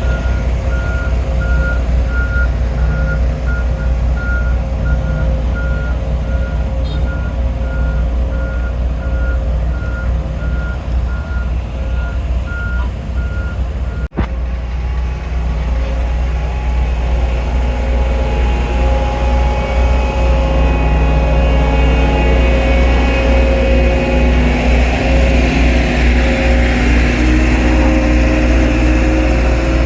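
Heavy construction vehicle's engine running with a steady low rumble while its reversing alarm beeps at a regular pace. About halfway there is a sudden break, the beeping stops, and the engine keeps running.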